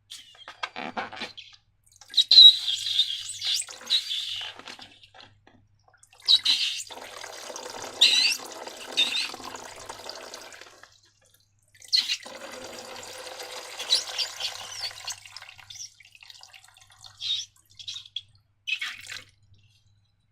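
Wet slime squelching and pouring, in three long stretches of a few seconds each, with a few short wet sounds near the end.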